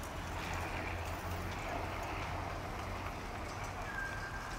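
Bicycles rolling past on paving: scattered light clicks and ticks over a steady low hum, with a short high tone about four seconds in.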